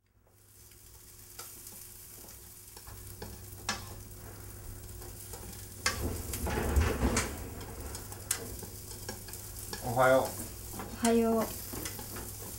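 Food sizzling in a frying pan, fading in, with a few light clicks of utensils. There is a louder clatter about six seconds in, and two short pitched sounds near the end.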